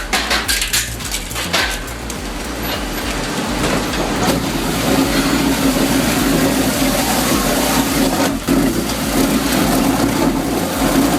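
Wood chipper running and chewing through wood: a steady, dense machine noise with sharp cracks and crunches in the first couple of seconds, and another about eight seconds in.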